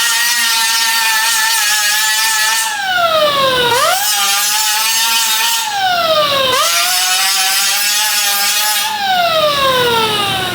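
A handheld electric power tool running at a steady high whine, its motor pitch sagging three times as it is loaded against the work and climbing back each time the load eases.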